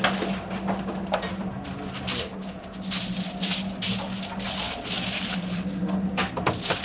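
Salt shaker shaken over food in quick rattling bursts, a run of shakes from about two to five seconds in and another near the end, over a steady low kitchen hum.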